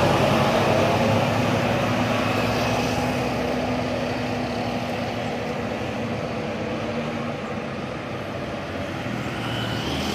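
Diesel engine of a passing intercity bus, a steady low drone that slowly fades, then swells slightly again near the end.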